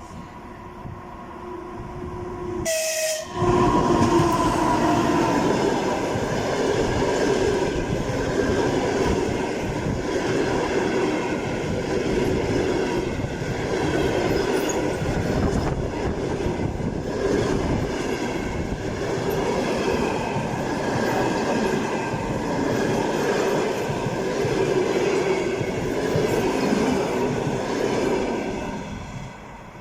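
Train, hauled by an EP2K electric locomotive, passing close: it builds over the first few seconds, then a loud, steady rumble and clatter of wheels over the rails lasts about twenty-five seconds before dropping away near the end.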